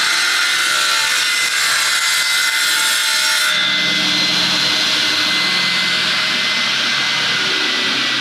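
Panel saw with a 7.5 kW three-phase motor ripping a wooden board along the rip fence: loud sawing noise that ends about three and a half seconds in, as the blade clears the board. The blade then keeps spinning free with a steady whine that sinks slowly in pitch.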